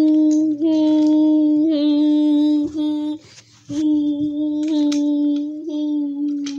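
A child's voice humming long, steady notes on one pitch, one after another, with a short break about three seconds in.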